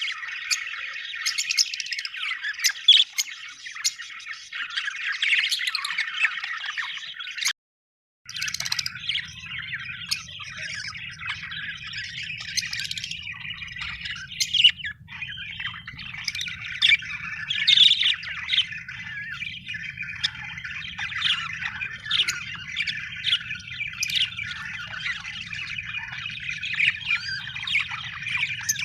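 A flock of budgerigars chattering and chirping, many short calls overlapping at once. The sound cuts out for a moment about eight seconds in, and after that a faint low hum runs beneath the birds.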